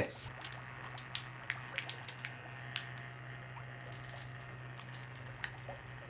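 Water dripping and trickling from leaking hose joints on a homemade copper-coil water-cooling suit, a handful of irregular drips, over a steady low hum from the circulation pump. The leak comes from joints not fully wrapped in Teflon tape.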